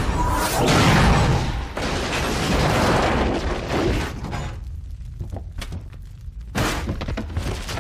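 Film sound effects of a metal refrigerator crashing into rocky ground and tumbling, with a crash, clatter and low rumble. The noise is loudest about a second in and eases after about four seconds, with one more brief impact near the end.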